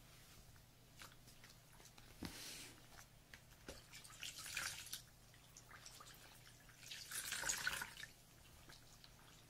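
Wet, close-up mouth sounds of ASMR ear licking in three slow, soft swells, with small wet clicks between them.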